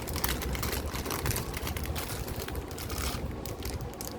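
Plastic jewellery packets rustling and crinkling as chains are handled, with many small irregular crackles and clicks, over a low steady background rumble.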